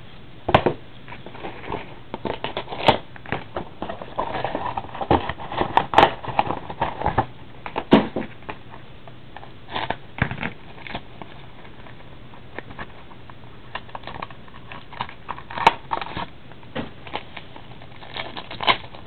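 Cellophane shrink wrap crinkling and tearing, with irregular clicks and taps as a sealed trading-card box is opened and its wrapped packs are handled; busiest in the first half, with a quieter stretch near the middle.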